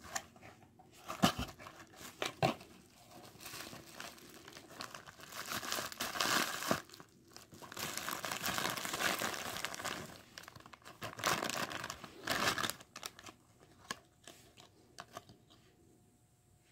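Plastic bubble wrap being pulled apart and unwrapped by hand. It crinkles and tears in irregular spells with a few sharp clicks, and goes quiet for the last few seconds.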